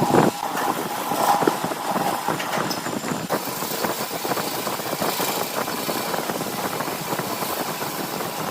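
Woodturning lathe running, with a dense, rapid crackle of the spinning workpiece being cut or worked.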